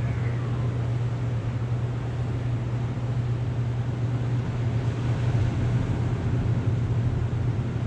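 A steady low mechanical hum over a constant rushing noise, unchanging throughout.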